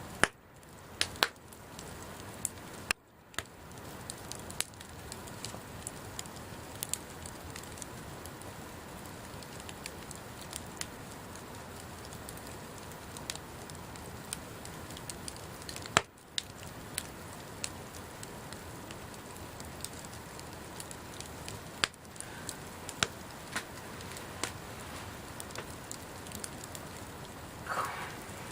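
Wood campfire burning with a steady hiss and scattered sharp crackles and pops, a few of them louder snaps.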